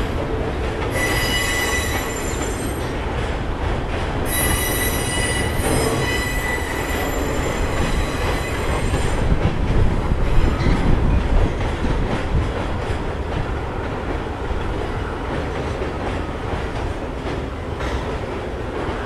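Slow-moving freight train cars rolling past, steel wheels squealing against the rails in two long high-pitched stretches in the first half over a steady rumble of wheels on track. The rolling rumble swells briefly about halfway through.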